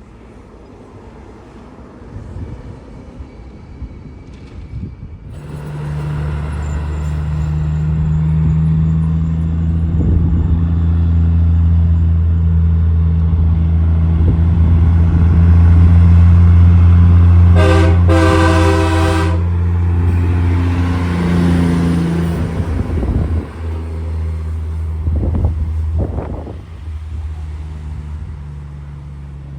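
A heavy diesel engine passing: it grows loud, holds, then fades away, with one short horn blast about two-thirds of the way in.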